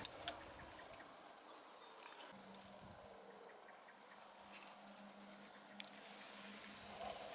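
Short, very high-pitched chirps in little clusters of one to four, from about two seconds in, typical of a small bird calling, with a faint low steady hum underneath.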